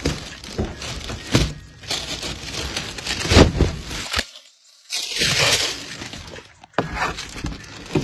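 Cardboard box and packing material being pulled and torn open, with irregular crinkling, scraping and knocks, the loudest about three and a half seconds in.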